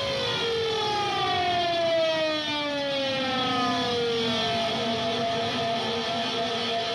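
Soundtrack sound: a sustained, many-toned sound gliding slowly down in pitch, like a siren winding down.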